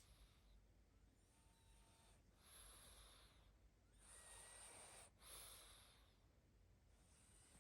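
A sleeping pug snoring: a faint run of hissy breaths, in and out, each about a second long. A brief thin whistling note sounds in two of them.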